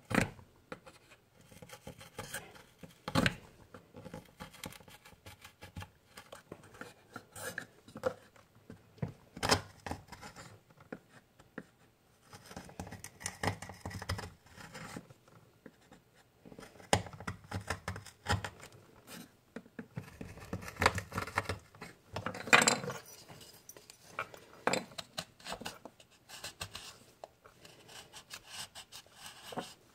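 Knife carving a wooden spoon blank by hand: irregular scraping cuts as shavings come off the wood, with a few sharper knocks.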